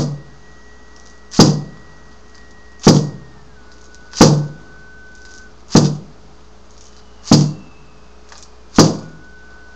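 Hand-held frame drum beaten in a slow, steady beat: seven strokes, about one every second and a half, each dying away quickly.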